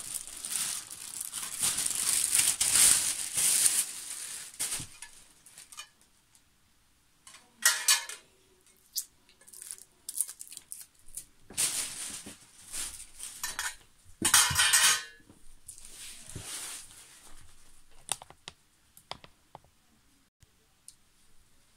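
Packaging rustling and crinkling for the first few seconds. After that come scattered knocks and clinks of thin metal tubes being handled, with two louder ringing metal scrapes, one about a third of the way in and one about two thirds in, as the trolley's tubular side frames are moved and set down.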